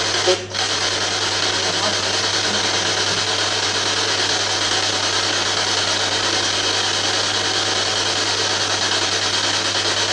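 Ghost box (spirit box) radio scanning through stations: a steady rush of static hiss, broken by a short dropout about half a second in.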